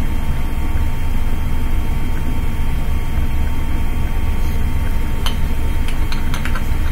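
Steady low hum of background room noise, with a few light clicks about five seconds in and near the end.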